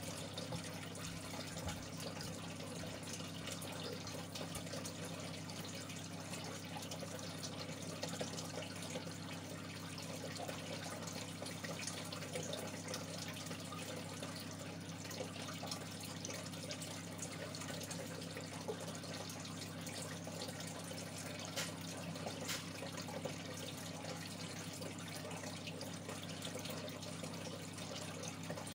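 Aquarium filter water trickling and dripping steadily into the tank, with many small splashes, over a low steady hum from the pump.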